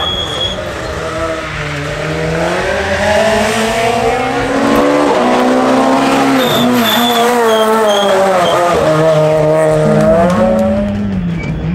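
Renault Clio R3C rally car's engine revving hard as it drives the stage, its pitch climbing on acceleration and dropping on the lift-off for each corner, several times over and loudest in the second half as it comes closer.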